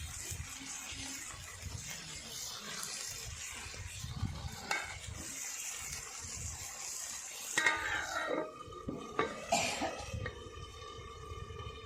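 Curry sizzling in a pan on a chula, with the scrape and clink of stirring. After about seven and a half seconds the sizzle gives way to a few sharp knocks and a steady pitched tone that runs on to the end.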